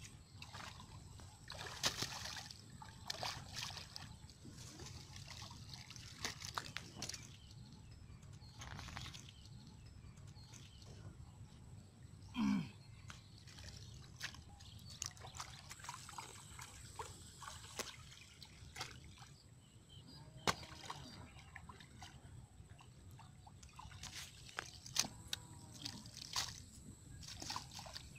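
Shallow muddy floodwater sloshing and splashing in irregular bursts as mud is dug with a hoe and scooped up by hand, with wet slaps of mud and trickling water. A brief pitched, voice-like sound about halfway through.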